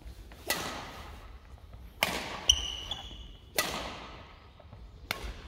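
Badminton racket strings striking a shuttlecock in a rally: four sharp strikes about a second and a half apart, each ringing on in the hall. A short squeal comes about halfway through.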